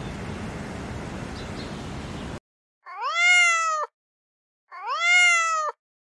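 Domestic cat meowing twice, each meow about a second long, rising in pitch and then holding level before breaking off. Before the meows, about two seconds of steady outdoor background hiss.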